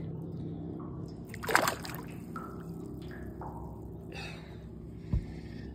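Water splashing and dripping as a bass released from the hand kicks away into the lake, with one sharp splash about a second and a half in. A steady low hum runs underneath, and there is a dull thump near the end.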